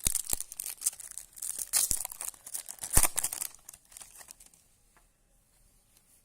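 Trading-card pack wrapper crinkling and cards being handled, with a few sharp snaps. The rustling dies away about four seconds in.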